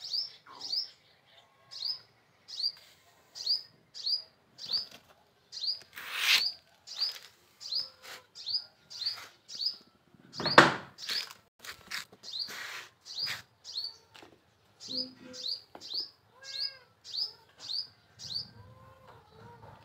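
A small bird chirping over and over, short high chirps about twice a second. Three louder rushes of noise break in, the loudest about halfway.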